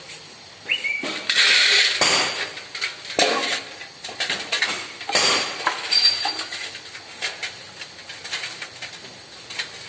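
Irregular metal clinks and knocks, some ringing briefly, with a short high whistle-like tone about a second in.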